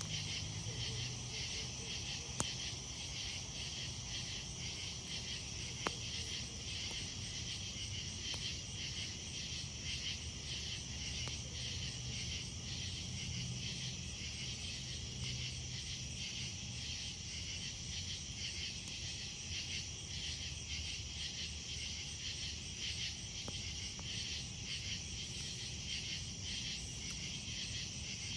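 Insects chirping in a steady, pulsing chorus. A campfire crackles under it, with two sharp pops in the first six seconds.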